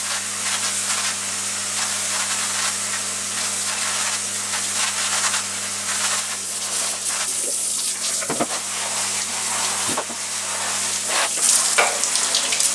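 Shower head spraying water through a tumble dryer's condenser unit to flush out fluff: a steady hiss of spray, with a few knocks in the last few seconds.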